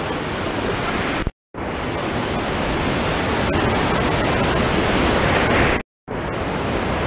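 Whitewater rapid rushing over rocks, a steady churning water noise. It is cut by two short silent gaps, about a second and a half in and about six seconds in.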